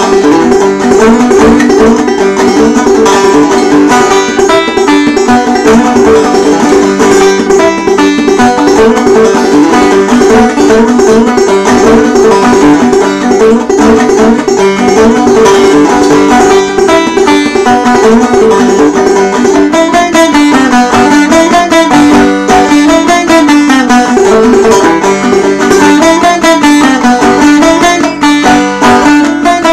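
Banjo playing a brisk old-time Appalachian tune, a dense, unbroken run of quick plucked notes.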